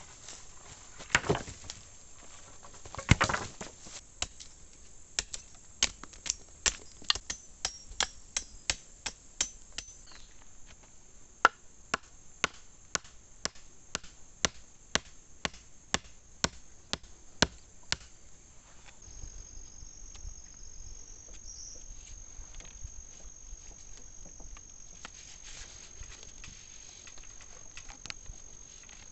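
Wood being chopped with a blade: two heavier blows, then an even run of sharp strikes about two a second that stops about two-thirds of the way through. Crickets trill steadily behind.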